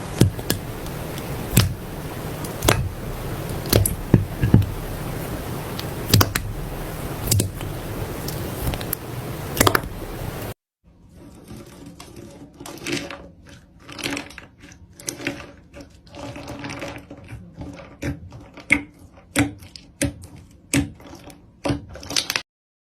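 Slime being squeezed and poked by hand, giving irregular sticky clicks and pops. For the first half they come about once a second over a steady hiss. After a sudden cut they come quicker and denser.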